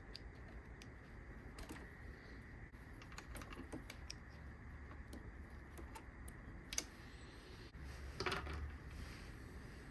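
Faint clicks and rattles of a replacement coffee-machine selector switch and its small plastic parts being handled, with a sharper click about seven seconds in.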